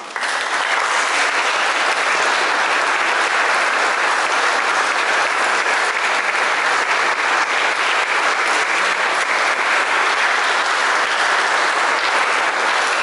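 Congregation applauding: the applause breaks out suddenly and holds steady.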